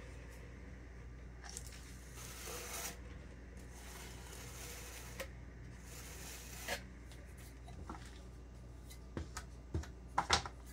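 Metal scraper working buttercream against a plastic Frostform stencil cylinder: soft intermittent scraping and smearing, with light clicks and a few sharper knocks of the blade on the plastic near the end.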